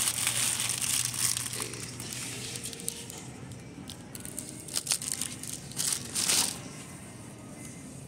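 Plastic wrapping on a pack of tomatoes crinkling and crackling as it is picked up and handled, in irregular bursts with a few sharper crackles.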